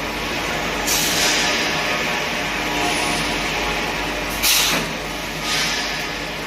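Pipe hydrostatic testing machine running with a steady hum, broken by bursts of hissing: one about a second in that fades over a second or so, a short sharp louder hiss a little past the middle, and a third shortly after.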